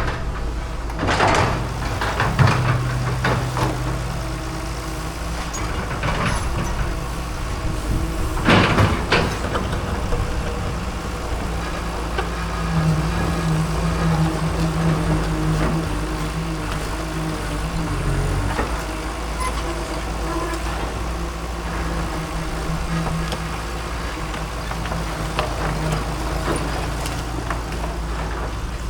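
Excavator's diesel engine running under load, its pitch rising and falling as the hydraulics work. Sharp knocks and crashes of the bucket against the concrete fence, the loudest in the first few seconds and about nine seconds in.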